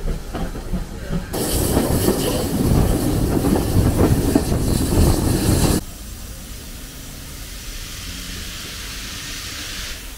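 Heritage steam train on the move, heard from an open carriage window: faint clicks of the wheels over the rail joints, then a loud rushing hiss. About six seconds in the sound drops sharply to the quieter inside of the carriage, with a steady hiss.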